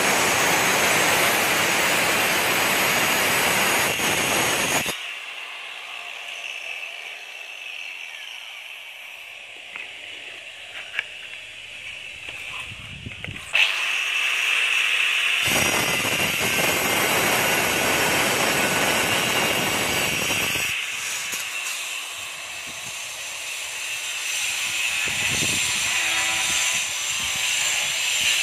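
Handheld electric marble cutter with a diamond blade cutting granite border strips: a loud grinding cut at the start lasting about five seconds, and a second cut from about fifteen to twenty-one seconds in. Between the cuts it goes quieter; about thirteen seconds in the motor starts with a sharp jolt and spins free with a steady high whine before the blade bites again.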